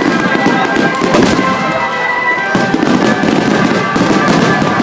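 Festival fireworks going off: several bangs and crackles over a steady crowd hubbub.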